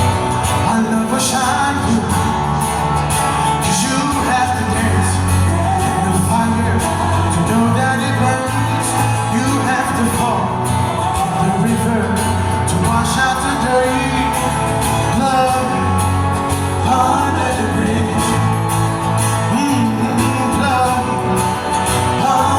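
Loud live band music with singing over it.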